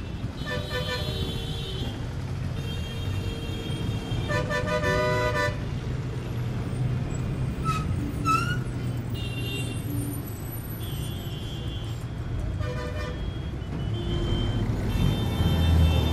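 Street traffic: vehicle horns honking again and again, overlapping blasts of about a second each, over a steady low engine rumble.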